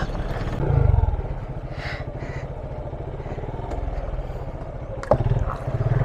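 Motorcycle engine running while riding over a rough gravel track, with the revs rising briefly about a second in and again near the end. There is a single sharp knock a little after five seconds.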